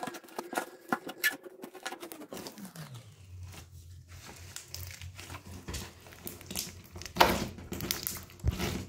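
Hands crumpling and kneading toilet paper into a firm, putty-like slime: irregular crinkling of the paper with soft sticky clicks and squelches. The loudest handling comes near the end.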